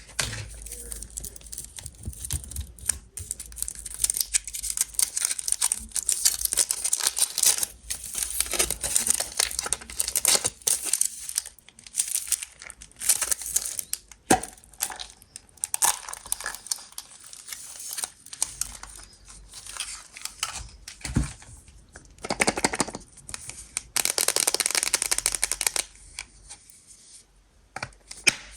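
Foil wrapper of a Kinder MAXI chocolate egg being peeled off, with irregular crinkling and tearing in uneven clusters. The sound eases off near the end.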